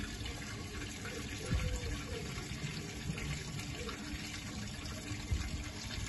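A washing machine emptying: water running out in a steady rush as the machine drains.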